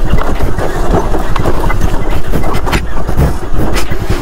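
Scooter riding down a rough dirt trail, its engine running under a steady low rumble, with frequent knocks and rattles as it goes over bumps and ruts.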